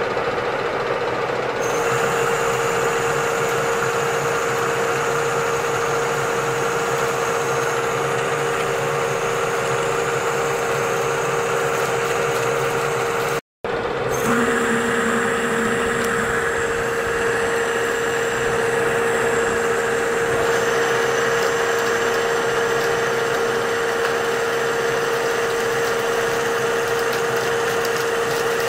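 Metal-turning lathe running steadily, a constant hum over machining noise. It cuts out for an instant about halfway through, then carries on.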